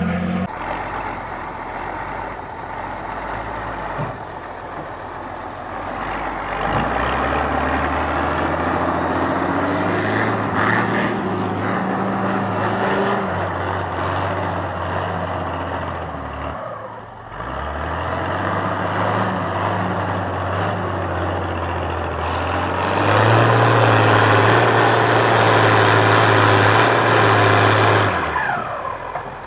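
Wheel loader's turbocharged diesel engine rumbling and revving in surges, tuned for more turbo pressure; it runs hardest for several seconds near the end, then the revs fall away.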